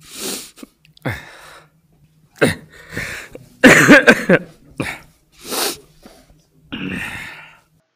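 A man weeping: a string of separate sniffs, gasping sobs and cough-like catches in the throat, with a louder choked, voiced sob about four seconds in.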